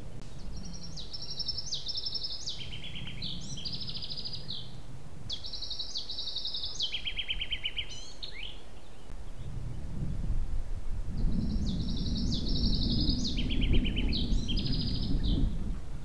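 A songbird singing three phrases, each a run of rapid trilled notes stepping up and down in pitch. Under it is a low rumbling background noise that grows louder about ten seconds in.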